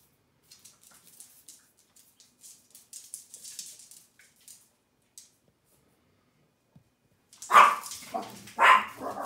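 Faint scrabbling of dog claws on a hard floor during play, then a small dog barks loudly twice near the end.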